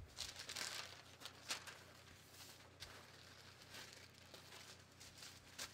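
Large sheets of pattern paper rustling and crinkling as they are lifted, flipped and slid into place, in several short bursts, the loudest near the start and about a second and a half in.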